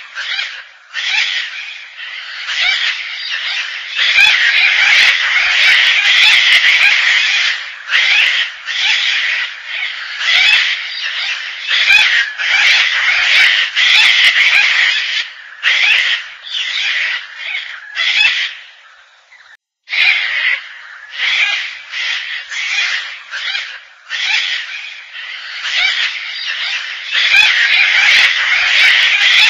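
Gang-gang cockatoo calling: a quick run of harsh, rasping, creaky calls, one after another, with a brief pause about two-thirds of the way through.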